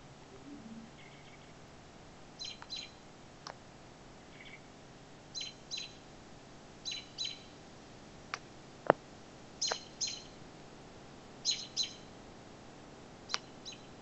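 A bird calling in short high chirps, mostly in pairs a fraction of a second apart, repeating every second or two. A single sharp click about nine seconds in is the loudest sound. No thunder is heard.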